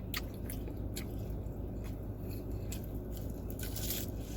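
Close-up chewing and mouth sounds of a person eating, with scattered small wet clicks over a steady low hum.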